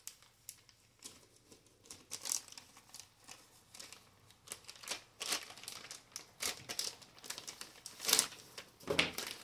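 Shoe packaging crinkling and rustling as it is unwrapped, in irregular crackles that grow louder and busier near the end.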